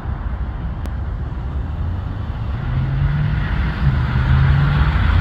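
Steady low rumble of a rear-engined jet on the runway, mixed with road traffic noise. A car approaching on the road grows louder over the last couple of seconds.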